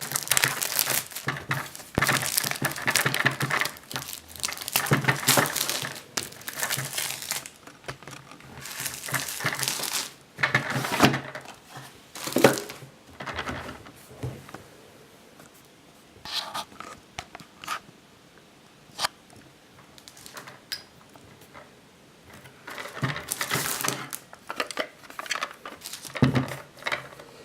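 Packaging crinkling and tearing as it is handled and opened, in irregular bursts of rustling. It is busiest in the first dozen seconds and again near the end, with small clicks and rustles in between.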